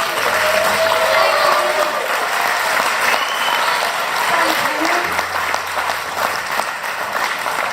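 Audience applauding and cheering at the end of a live band's song, with a few shouts from the crowd.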